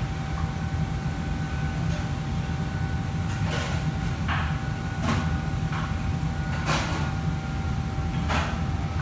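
Steady low rumble of a commercial kitchen's exhaust hood and wok burners, with a faint steady whine above it. About six short metal clatters, like utensils knocking on woks and pans, come through the middle and later part.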